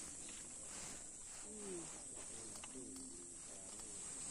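Faint outdoor ambience: a steady high-pitched insect drone, with faint low wavering sounds underneath.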